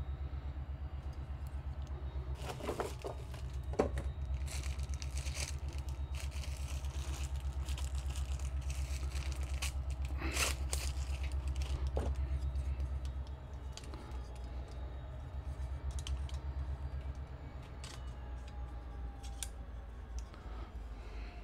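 Small metal parts of a greenhouse automatic vent opener being handled and fitted together: scattered clicks, clinks and short rattles. A steady low hum runs underneath and drops about two-thirds of the way through.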